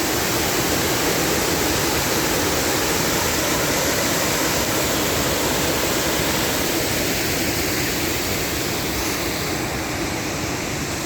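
Waterfall: a steady rush of falling water, easing slightly near the end.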